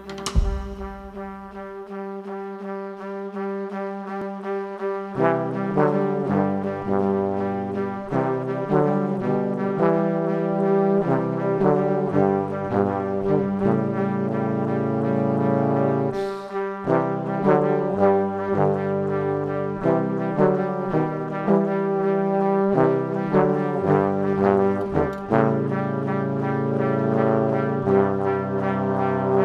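Background music: sustained chords over a stepping bass line that comes in about five seconds in.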